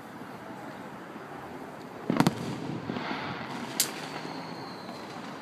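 Aerial firework shells bursting: a loud double boom about two seconds in, then a sharper, shorter crack a second and a half later.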